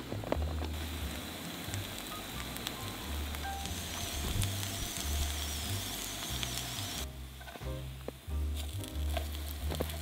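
Bracken and buckwheat-batter pancakes sizzling in oil in a frying pan on a portable gas stove. The sizzle changes abruptly about seven seconds in.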